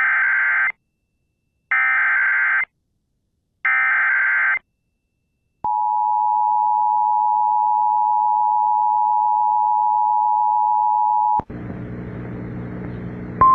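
Emergency Alert System tones: three short warbling digital data bursts (the SAME header), about a second apart, then a steady two-tone attention signal held for about six seconds. The attention signal cuts off abruptly into a quieter low buzzing hum with hiss.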